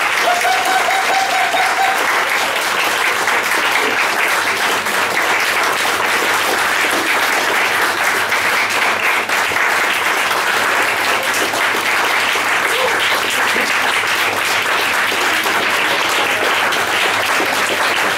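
Audience applauding steadily, a dense even clapping that keeps going without letting up.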